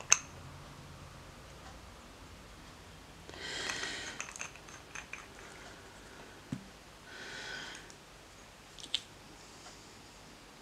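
A sharp click, then a scraper drawn twice across a nail-stamping plate, each scrape a second or so long with a faint squeak in it, and a couple of small clicks between and after.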